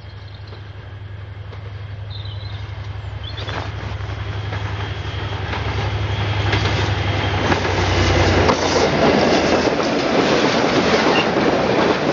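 Diesel-hauled DRS freight train with Class 57 and Class 37 locomotives approaching and passing close by. The locomotive's low engine drone grows steadily louder. About eight seconds in the locomotive goes by, and the sound turns into the loud rush and clatter of wagon wheels on the rails.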